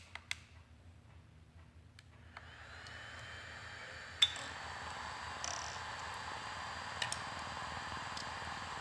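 A few sharp clicks, then about two and a half seconds in the DJI Inspire 2 Pro's cooling fans in the nose spin up. They settle into a steady whirring hiss with a faint high whine, broken by a sharp click and a couple of smaller ones.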